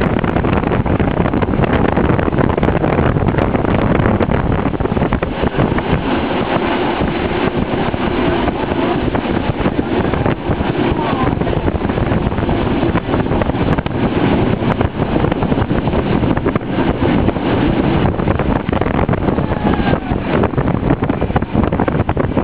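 Wind buffeting the microphone of a camera filming from a moving vehicle, a steady rumbling noise.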